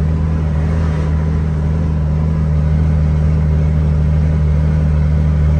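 Scania 112 truck's inline-six diesel engine running steadily under a heavy load of about 45 tonnes of corn while climbing a grade, heard from inside the cab with road noise, its pitch holding steady.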